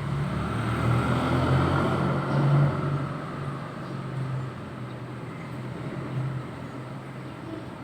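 Road traffic from outside: a motor vehicle's engine hum, loudest about two and a half seconds in and then fading as it passes.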